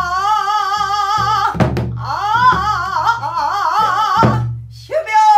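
Female pansori singer holding long, heavily wavering sung notes, accompanied by a buk barrel drum struck twice, about a second and a half in and again about four seconds in. The voice breaks off briefly near the end, then comes back on a falling note.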